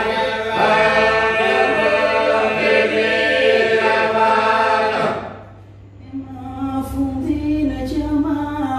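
Albanian polyphonic group singing a cappella in several parts. The full chord fades out about five seconds in, and after a short pause a single voice starts the next phrase.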